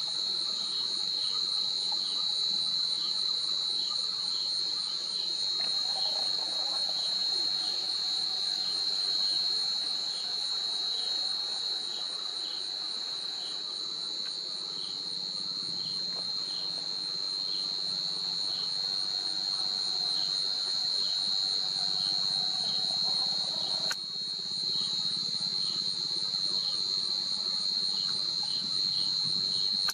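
Insect chorus: a steady, shrill, high-pitched drone with a faint regular pulse beneath it.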